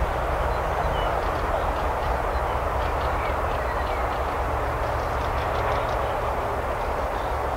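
Freight train's wagons rolling past on the rails: a steady rumble and rushing noise of wheels on track.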